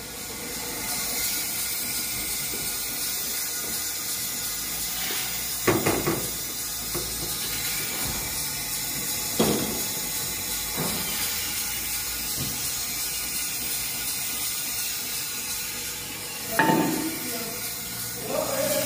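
Steady hiss from a brake parts washer and its air line, with three sharp knocks a few seconds apart.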